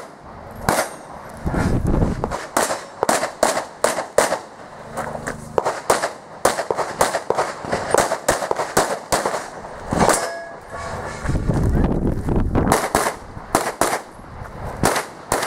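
Handgun shots fired in rapid succession, many sharp cracks in quick clusters separated by short pauses.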